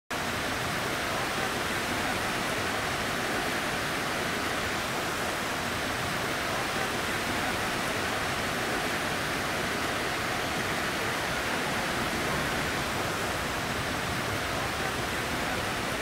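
Water rushing steadily through a salmon fish ladder: an even, unbroken hiss.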